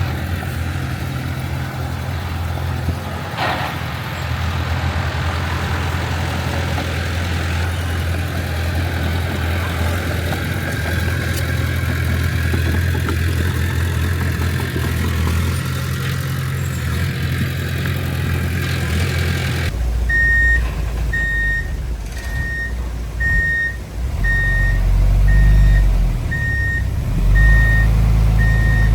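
Heavy diesel engine of earthmoving machinery running steadily. About two-thirds of the way through the sound cuts to a reversing alarm beeping about once a second over a deeper engine that rises and falls, typical of a dump truck backing up.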